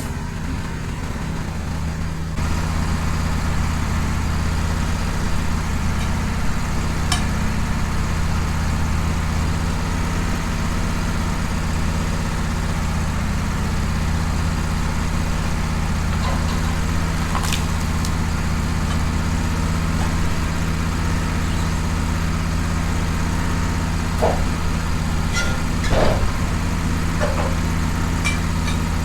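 Wood-Mizer LT15 portable sawmill's engine running at a steady idle, with a few light clicks and knocks scattered through it.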